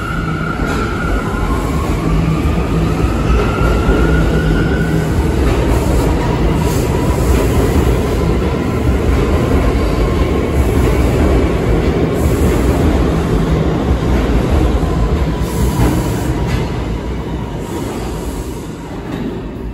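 New York City subway A train pulling out of an underground station: a rising motor whine as it picks up speed over the first few seconds, over a steady rumble and clatter of wheels on the rails. The sound fades near the end as the last car moves into the tunnel.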